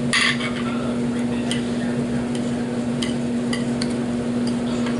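Eating with a metal fork: a short scrape right at the start, then scattered light clicks of the fork and mouth, over a constant steady hum.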